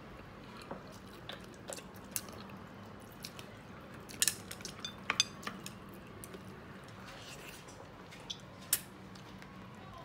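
A person eating braised soft-shell turtle by hand, gnawing and sucking at a piece of the shell: scattered wet smacks and sharp clicks, loudest in a cluster about four to five seconds in and once more near nine seconds, over a low steady hum.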